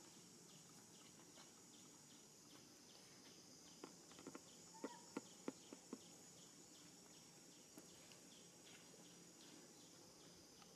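Faint insects buzzing, with a regular short chirp repeating a few times a second. A quick run of sharp clicks comes about four to six seconds in.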